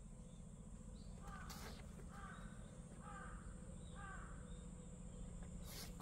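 A bird cawing four times, a little under a second apart, over a faint steady outdoor background. A short swish comes about a second and a half in and another near the end.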